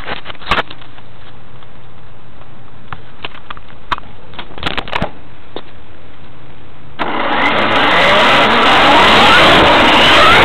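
A few sharp clicks and knocks, then about seven seconds in a sudden loud rush with repeated rising whines as the E-Maxx RC monster truck's Novak brushless motor drives it off at full throttle, heard from a camera mounted on the truck.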